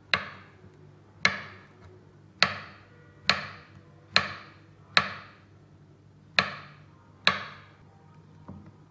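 Kitchen knife slicing through peeled bananas and knocking on a wooden chopping board: eight sharp chops, roughly one a second, each fading quickly. Near the end the chopping stops.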